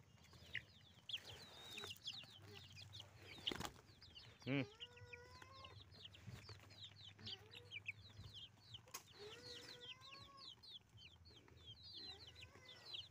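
Young chickens peeping continuously in quick, high, falling chirps while they peck rice from a hand, with a few lower, drawn-out calls among them about four and a half and nine and a half seconds in. The sound is faint.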